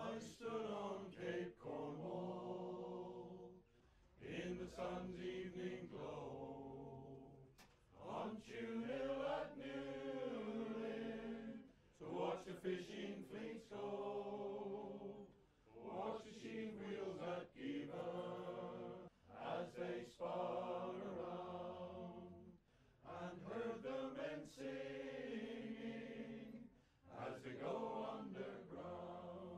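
Background music of chanting voices, sung in sustained phrases of three to four seconds with short breaks between.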